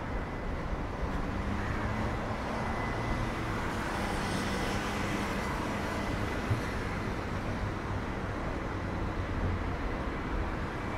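Steady city-street traffic noise, vehicles running past with a faint low engine hum, and one short click about six and a half seconds in.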